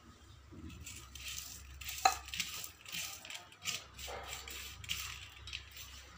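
Steel kitchenware being handled: a sharp, briefly ringing metallic clink about two seconds in, among repeated scraping and rustling clatter.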